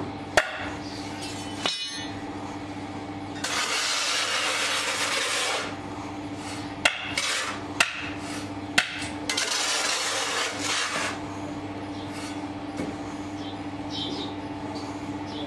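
Loose moulding sand shovelled into a steel casting flask: two stretches of sand hissing down, a few seconds apart, with several sharp metal knocks from the shovel and flask. A steady low hum runs underneath.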